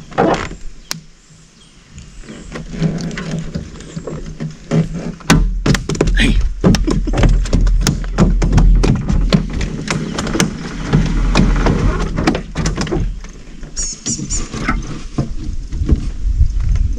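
A run of quick, irregular thunks and knocks in a small fishing boat over a low rumble, starting about five seconds in and going on until near the end.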